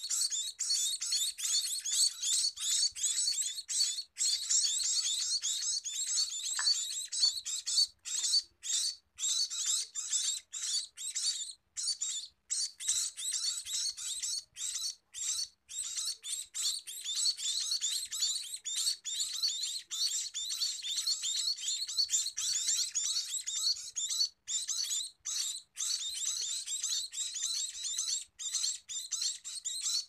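A brood of scaly-breasted munia nestlings giving high-pitched begging calls, many short overlapping cheeps in an unbroken chorus, as they are hand-fed.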